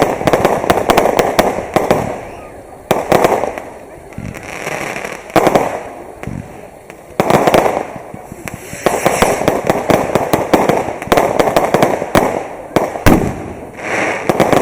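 Fireworks going off: volleys of sharp bangs and crackling, with short lulls at about two to four seconds in and again around six to seven seconds.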